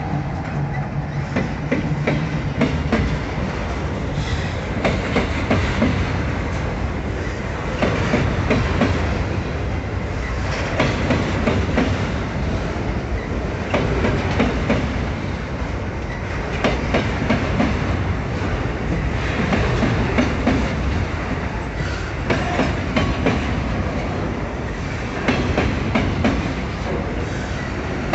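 Freight train of covered hopper wagons rolling past close by, the wheels beating a steady clickety-clack over the rail joints. In the first second a diesel locomotive's engine hum is still heard as the last locomotive goes by.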